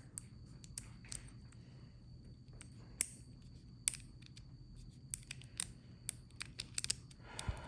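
Small metal fidget-toy parts clicking and tapping as they are handled and fitted together. The clicks are scattered, with the sharpest about three and four seconds in and a quicker run of them later on.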